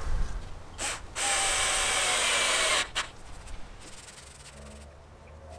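A power drill runs in one steady burst of about a second and a half, with a sharp click just after it stops.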